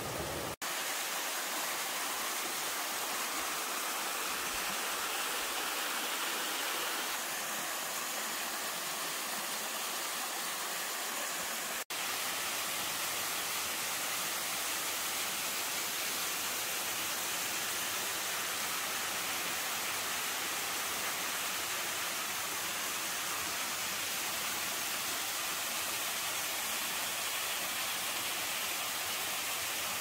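Steady rush of mountain stream water cascading over boulders and a waterfall falling down a rock face. Two brief dropouts break it, about half a second in and about twelve seconds in. After the second the rush is fuller and deeper.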